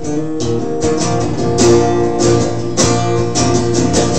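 Acoustic guitar strummed in chords, several strokes a second, with the chord notes ringing on between strokes.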